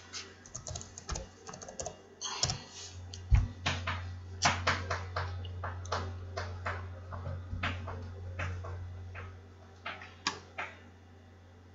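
Typing on a computer keyboard: irregular key clicks, with a low steady hum underneath.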